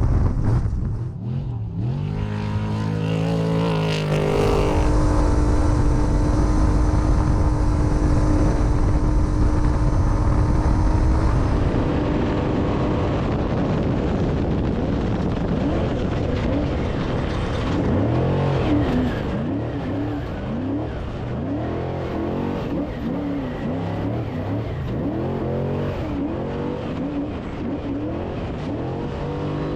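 Off-road desert race vehicles' engines running hard, the pitch repeatedly rising and falling with throttle and gear changes. The sound changes abruptly about 5 and 12 seconds in, where different shots are cut together.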